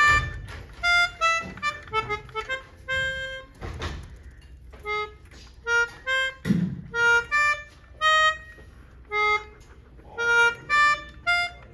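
A small wind instrument, harmonica-like, playing a halting tune of short separate notes at changing pitches, with a few low thumps in between.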